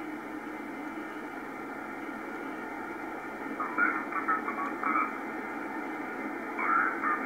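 Receiver hiss from the Es'hail-2 (QO-100) narrowband satellite transponder, heard through an SDR's single-sideband audio. Brief garbled fragments of a station's voice come through about four and five seconds in, and again near the end.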